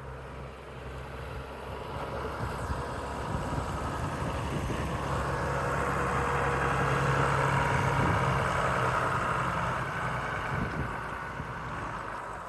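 Farm tractor engine running. It grows louder to a peak about two-thirds of the way through, then fades, as it moves past.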